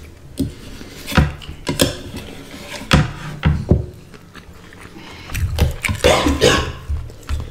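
Close-up eating sounds of rice and curry being eaten by hand: wet chewing and mouth noises, with a series of sharp clicks and taps of steel serving spoons and fingers against the plates and bowls, busier near the end.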